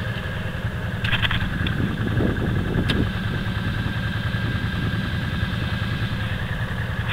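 ATV engine idling steadily while its electric winch runs with a steady whine, reeling in the cable to pull the stuck quad out. A few short clicks come about a second in and again near three seconds.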